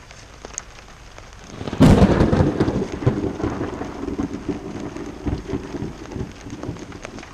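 A sudden crack of thunder about two seconds in, followed by rolling rumbles that slowly fade, with rain falling.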